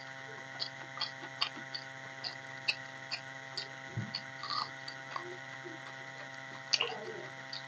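Close-up eating sounds: wet mouth clicks and lip smacks from chewing rice eaten by hand, with fingers squishing rice on a steel plate. The clicks come irregularly, several a second, with a low thud about four seconds in and a louder burst of clicks near the end, over a steady hum.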